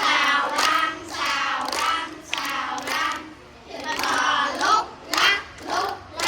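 A group of children singing a chant-like song together, with hand claps keeping time; toward the end the singing breaks into short, separate syllables.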